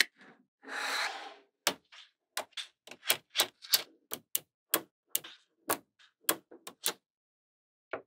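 Small magnetic balls clicking as pieces snap together, a run of sharp separate clicks about two a second, with a brief rattling rush about a second in.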